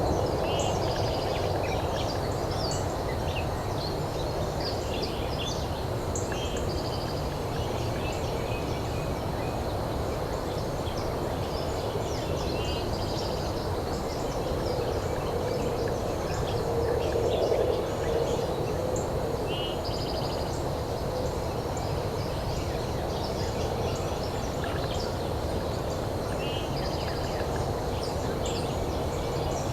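Wild turkey gobbling once, a little past the middle, over steady outdoor background noise with many small songbird chirps and trills.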